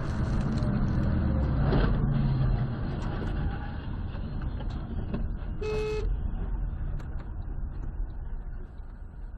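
Car driving at highway speed, heard from inside the cabin as a steady road and engine rumble that slowly fades. A short horn toot comes about six seconds in.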